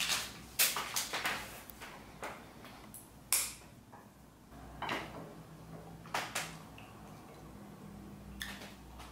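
A pair of disposable wooden chopsticks being picked up and split apart: a series of sharp clicks and taps, the loudest about three seconds in.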